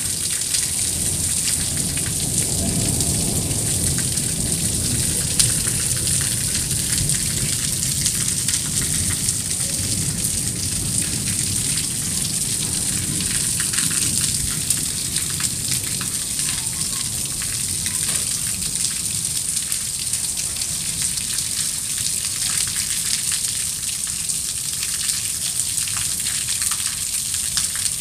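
Heavy monsoon rain falling steadily on flat brick roofs and standing water, an even hiss with a low rumble underneath.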